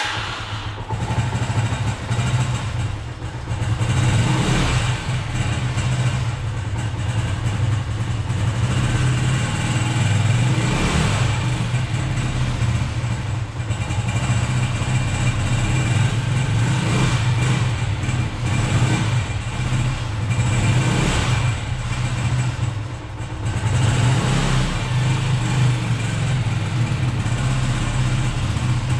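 Lada Zhiguli's four-cylinder carburetted engine idling steadily while it warms up after standing unused for a couple of months, its level swelling a little now and then.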